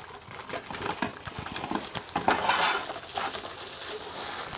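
A Trueware rotating spice rack with plastic jars and black lids being handled and turned: scattered light clicks, knocks and rattles, with a denser rustling patch a little past halfway.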